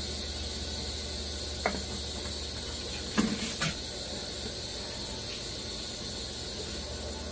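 Steady hiss with a low hum underneath, broken by a light click about one and a half seconds in and two small knocks a little after three seconds.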